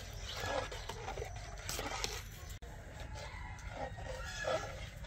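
Metal ladle stirring milk kheer in an aluminium pot, with irregular scraping and sloshing, and animal calls in the background.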